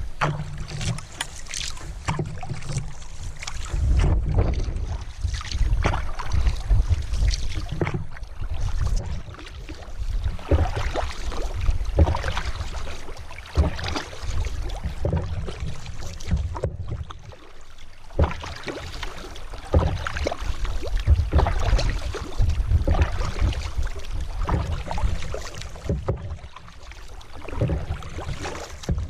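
Canoe being paddled: repeated paddle strokes washing through the water and along the hull, with sharp knocks of the paddle against the gunwale carried through the GoPro's mount, over a low wind rumble on the microphone.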